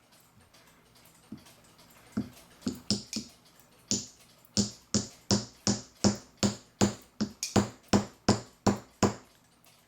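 Small hammer tapping a gear onto its shaft in a clock movement, to start it on. A few light, scattered taps come first, then a steady run of about three taps a second that stops about nine seconds in.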